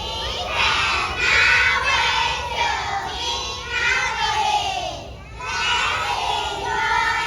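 A crowd of voices, many of them children's, shouting and cheering together in two loud swells, with a brief dip about five seconds in.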